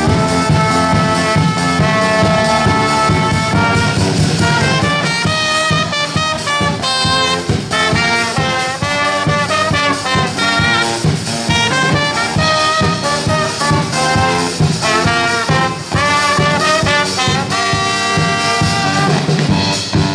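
Brass band playing a loud tune, the horns moving through quick runs of notes over a steady beat.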